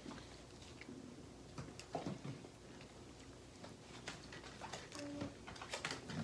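Quiet room with scattered faint clicks and taps, and a brief low hum about five seconds in.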